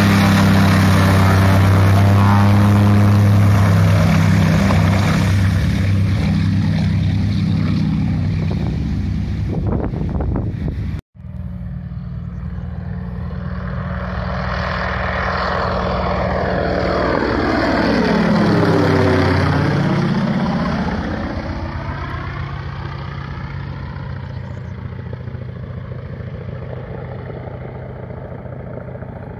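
PZL M-18B Dromader's nine-cylinder radial engine idling on the ground with the propeller turning. After a sudden cut about eleven seconds in, the plane flies low past: the engine drone swells to a peak, sweeps down and back up in pitch as it goes by, then fades as it climbs away.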